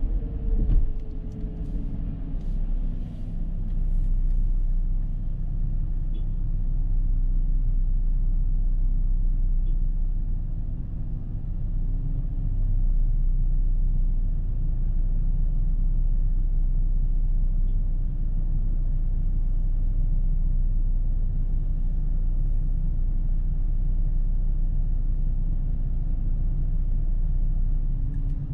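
Dodge Charger with a 3.5-litre V6 driving, a steady low rumble of engine and road noise. A faint engine tone falls slightly near the start.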